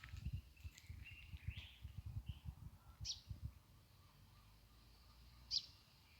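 Small songbirds chirping in short, high, scattered calls, the two sharpest about three seconds and five and a half seconds in. Low irregular thumps run under them through the first half.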